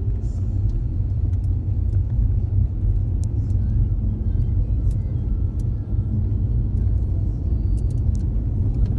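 Steady low rumble of a car driving, heard from inside the cabin: engine and tyre noise on a wet, snowy road, with a few faint scattered ticks.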